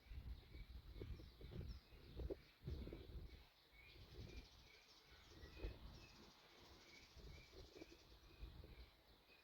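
Faint birdsong: short chirps repeating about twice a second, with a few higher calls, over low rumbling thumps that are strongest in the first few seconds.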